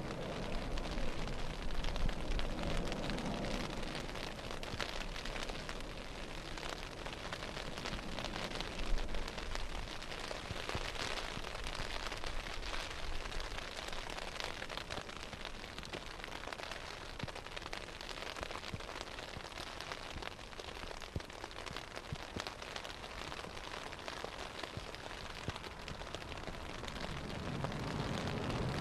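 Steady hiss of heavy rain, with the low rumble of a landing Boeing 787's jet engines underneath, swelling near the end as it rolls out on the wet runway.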